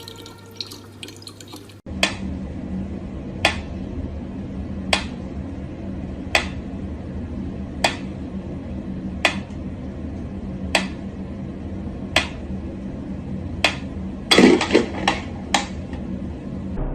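Water dripping at a slow, even rate, one sharp drop about every second and a half, over a steady low hum in a small room. A brief louder clatter comes near the end.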